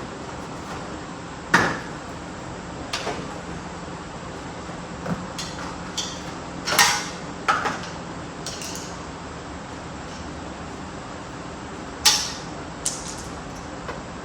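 Irregular sharp knocks and clicks of hand work on a car's rear bumper, about nine over the stretch, two of them louder than the rest, over a steady background hum.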